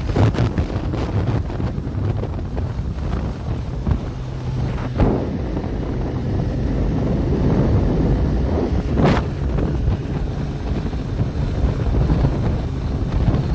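Wind buffeting the microphone over a steady low rumble, with a few sharp knocks, about a third of the way in and again past the middle.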